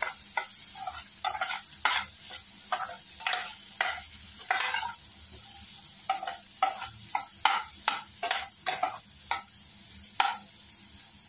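Metal spatula scraping and knocking against a stainless steel pan as diced elephant foot yam is stirred while it sautés in oil, in irregular strokes about two a second that stop near the end. A steady frying sizzle runs underneath.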